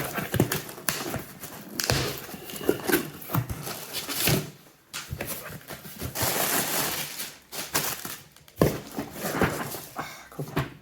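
A parcel being opened by hand: cardboard and packaging rustling, scraping and tearing, with several sharp knocks and clicks.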